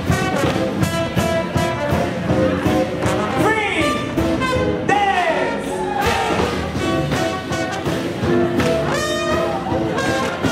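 Jazz band playing a swing tune, with brass to the fore and a few notes that slide downward.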